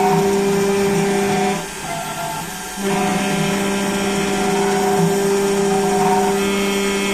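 Small CNC engraving machine running, its spindle giving a steady motor whine. The whine drops out and goes quieter for about a second near two seconds in, then comes back.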